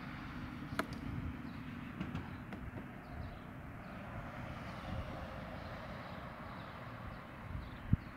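Steady outdoor background noise with a fluctuating low rumble, a sharp click about a second in, and a short loud knock near the end as a large plastic toy car is grabbed and tipped up.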